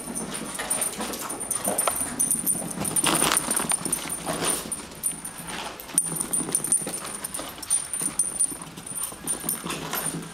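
Small dogs (Brussels griffons, an affenpinscher and a chihuahua) running about in a chase, with yips and whimpers amid irregular scuffling noises that come and go.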